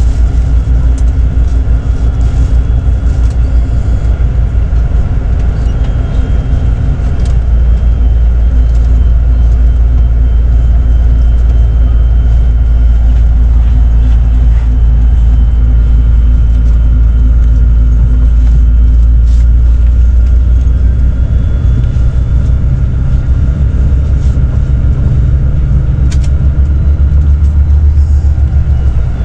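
Intercity coach bus on the move: a steady, loud low rumble of engine and road noise, with a few light clicks and rattles.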